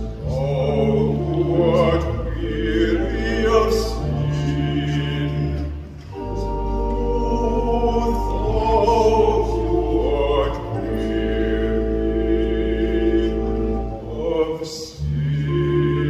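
A solo baritone singing a slow, sacred song with vibrato, accompanied by sustained organ chords that change every few seconds.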